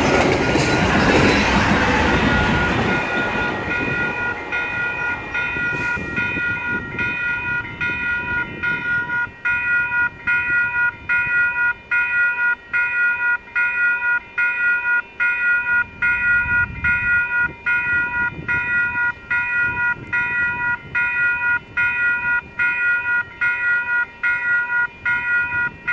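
The last cars of a VIA Rail passenger train clatter past and fade away over the first few seconds. Then the crossing's warning bell sounds a chord of several ringing tones that pulses on and off evenly, about one and a half times a second. The bell sounds odd, which the uploader takes for a broken bell.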